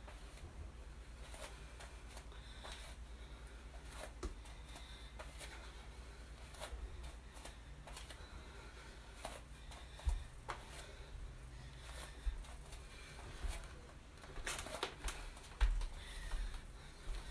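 Bare feet stepping and thudding on a yoga mat during side lunges, with clothing rustle and repeated breaths; a few heavier thumps come in the second half.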